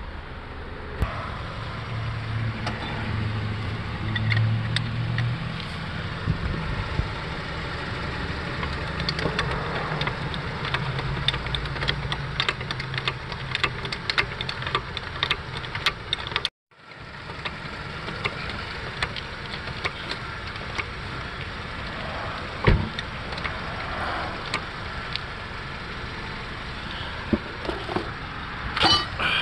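A 2006–2011 Honda Civic running and rolling, with irregular sharp clicks over the steady engine and road hum. The clicking comes with turning the steering wheel, the usual sign of a worn outer CV joint on the axle.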